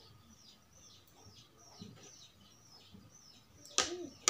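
A small bird chirping over and over in the background, short high descending chirps about three or four a second. Near the end, a sharp knock as the noodle cup is tipped against a plate.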